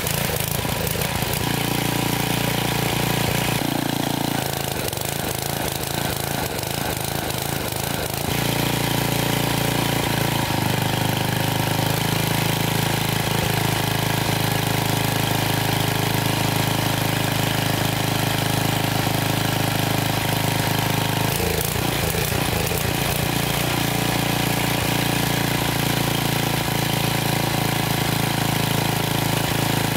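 Briggs & Stratton 190cc single-cylinder pressure-washer engine running, its speed and note changing a few times: dropping a little about 4 seconds in, picking up again around 8 to 10 seconds, and shifting again near 21 seconds.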